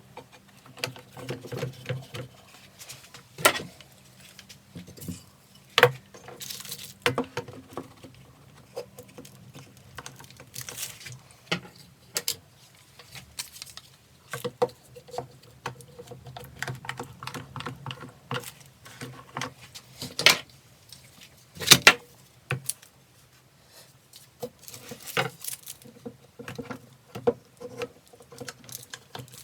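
Sash clamps and wooden cauls being set and tightened on an edge-glued panel: irregular clicks, knocks and light metallic rattles, the loudest knock about 22 seconds in, over a faint steady hum.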